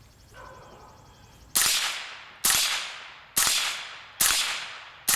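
Suppressed AR-57 firing 5.7x28 mm rounds: five sharp shots at a steady pace of about one a second, starting about a second and a half in, each trailing off in a short echo. The rifle cycles every round without a stoppage.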